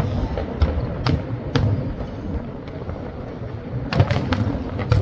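Fireworks bursting: scattered sharp bangs over a steady low rumble, with several bangs in quick succession about four seconds in.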